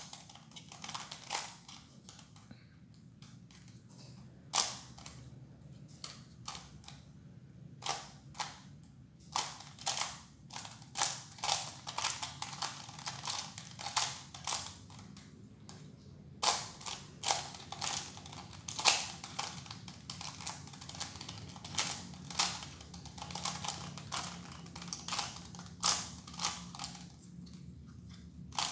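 Skewb puzzle being twisted by hand: uneven runs of sharp plastic clicks as its pieces turn, with short pauses between runs.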